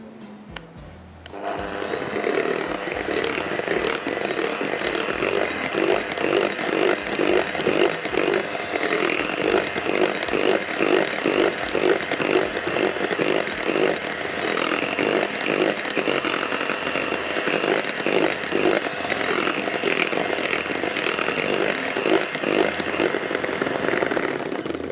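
Electric hand mixer running, its beaters churning whipped cream through a batter in a glass bowl; it switches on about a second in and stops just before the end.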